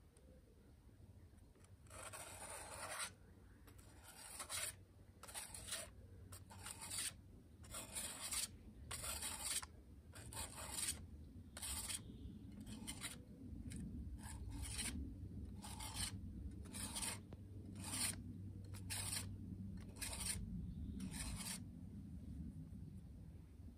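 Steel billhook blade stroked across a sharpening plate to hone its bevelled edge along the straight part: a long stroke about two seconds in, then a steady run of short strokes about one a second, stopping shortly before the end.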